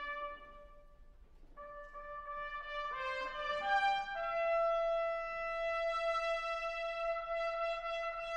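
Solo trumpet playing an unaccompanied slow call. A held note fades out right at the start, and after a short pause a note comes in, then a quick rising run about three seconds in, then a long held note.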